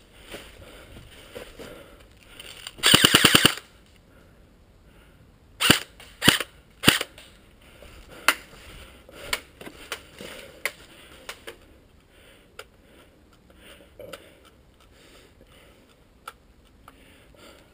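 Airsoft electric guns firing: a short full-auto burst of rapid shots, then three single shots about half a second apart, then fainter scattered shots.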